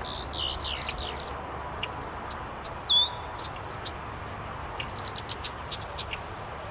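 Red-winged blackbird calling: a quick run of descending whistled notes at the start, one loud down-slurred whistle about three seconds in, then a string of short sharp chip notes near the end.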